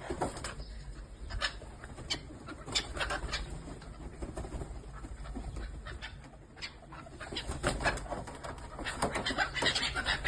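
A group of birds feeding, making many short, sharp sounds that come thicker and faster in the last few seconds.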